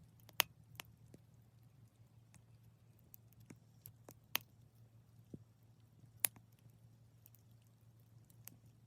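Burning wood crackling, with sharp pops at irregular intervals over a steady low hum.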